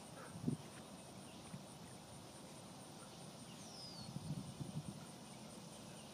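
Quiet outdoor pond-side ambience with a steady high insect drone. There is a low thump about half a second in, a single descending bird chirp about four seconds in, and a few faint low knocks shortly after.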